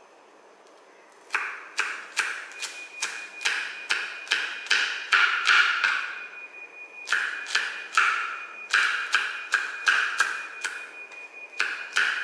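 Chef's knife chopping garlic cloves on a plastic cutting board: a run of sharp knocks, about two or three a second, starting about a second in, with a short pause midway.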